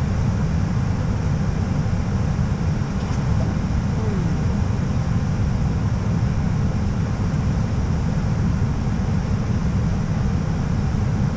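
Steady flight-deck noise inside an Airbus A320 during descent: an even, deep noise of airflow and engines with a fainter hiss above it.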